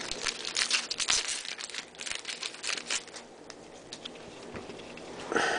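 Foil wrapper of a 2011 Topps Series 2 baseball card pack crinkling and tearing as it is opened, a rapid run of crackles that thins out after about three seconds into quieter handling of the cards.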